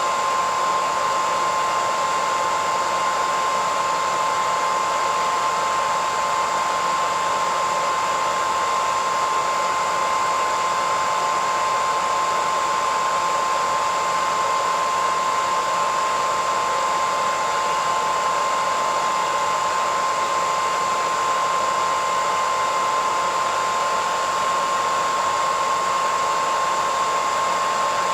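Hairdryer running continuously at a steady speed: an even rush of blown air with a constant high motor whine.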